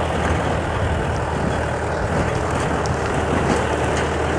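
Mahindra 595 tractor's diesel engine running steadily under load, driving a PTO-powered ratoon manager whose discs and blades cut sugarcane stubble and soil.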